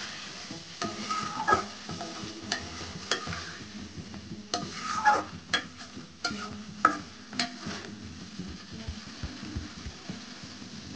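A metal spatula stirring egg curry in a metal karahi, scraping and clicking against the pan in irregular strokes, with the curry sizzling underneath. The clicking stops about seven and a half seconds in, leaving only the sizzle.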